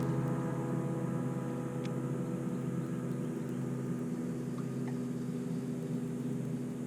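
A bass boat's motor humming steadily with an even pitched drone, with a few faint clicks.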